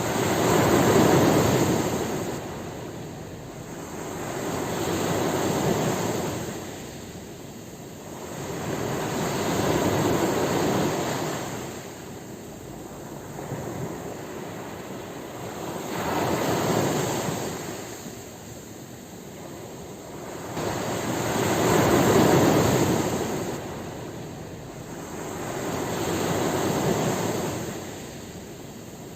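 Ocean waves surging onto a shore, a steady rush of surf that swells and falls back about every five to six seconds.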